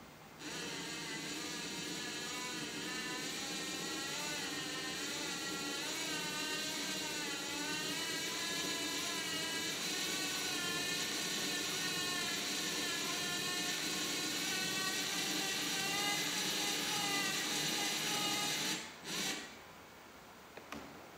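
LEGO Mindstorms NXT motor driving a 3D-printed plastic gear train: a steady whir with gear noise whose pitch wavers up and down as the motor speed changes. It stops about nineteen seconds in, runs again very briefly, then cuts off.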